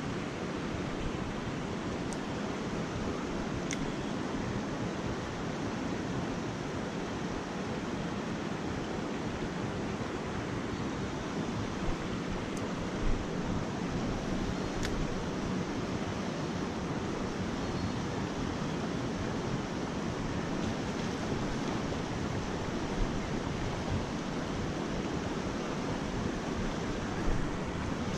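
Steady rush of flowing river water, with a few faint clicks scattered through it.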